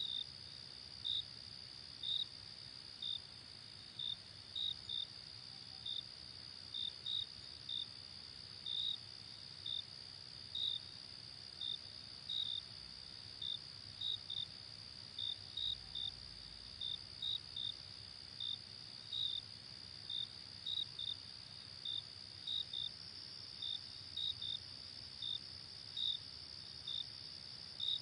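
Night-time crickets chirping: a steady high trill with louder short chirps repeating unevenly, about two a second, over a faint low rumble.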